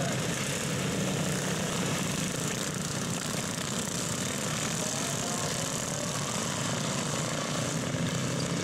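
Several racing garden tractors' small engines running together in a steady, continuous drone as they lap a dirt track, some rising and falling in pitch.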